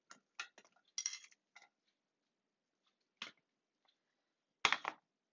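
Red onion pieces dropped into a glass baking dish: a quick run of light taps and clicks for the first couple of seconds, a single tap about three seconds in, and a louder knock and clatter near the end.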